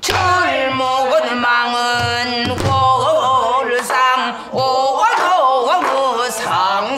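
A woman sings a Korean danga in pansori style, her voice sliding and wavering between held notes. She accompanies herself with occasional stick strokes on a buk barrel drum.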